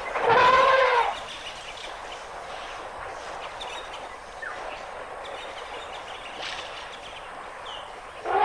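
An elephant trumpets once for about a second, a loud call that rises and then falls in pitch. Faint short bird chirps follow over a quiet outdoor background.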